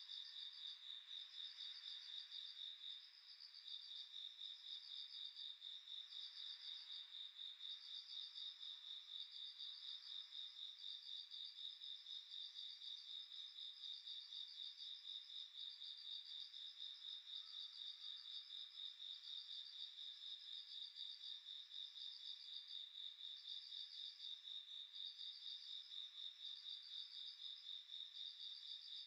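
Faint chorus of insects: a steady high-pitched trill with a second insect's pulsing chirp, repeating about once a second.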